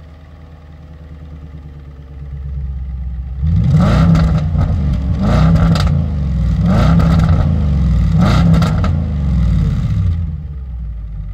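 Audi S5's V8 idling through its stock quad-tip exhaust, then revved hard again and again, about every one and a half seconds, each rev rising and falling back to idle and much louder than the idle.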